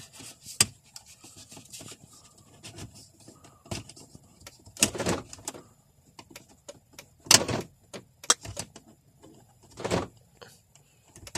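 Plastic clicks, knocks and scrapes as a component and its trim are pushed back into a car's dashboard. There are three louder scraping rubs about five, seven and a half and ten seconds in.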